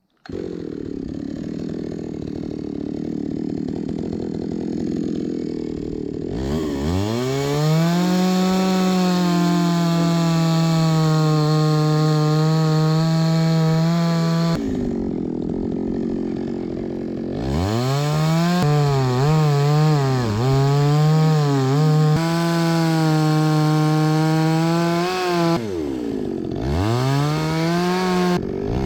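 Gasoline chainsaw revving up about six seconds in and running at high speed through a log, its pitch wavering under load while cutting, easing off twice and revving up again each time.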